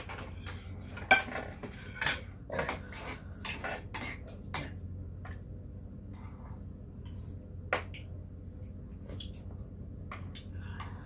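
Metal spoons clinking against bowls and a soup pot at the table: a quick run of clinks in the first few seconds, the loudest about a second in, then a few scattered ones.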